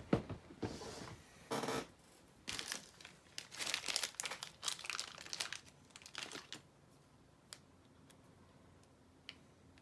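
Hand-handling noises during an o-ring swap on a paintball regulator: crinkling and rustling with small clicks and scrapes for about six seconds, then two faint clicks near the end.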